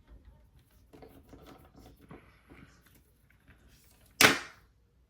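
Faint small clicks and taps of work on the phone's tiny screws and parts, then one sudden loud, sharp knock about four seconds in that dies away quickly.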